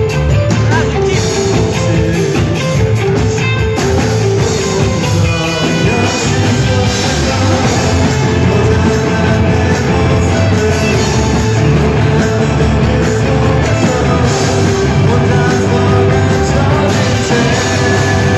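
Rock band playing live on electric guitars and drums, loud and continuous, with a male voice singing.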